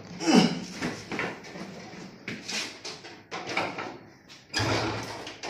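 Clunks, scrapes and rattles of metal parts as a mechanic works on a motorcycle, a string of separate knocks with a longer, louder stretch near the end.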